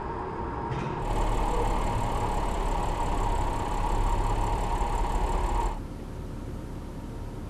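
Audi car's engine and tyres running as it drives slowly through a parking garage. The sound gets louder about a second in and cuts off suddenly near the end, leaving a quieter steady hum.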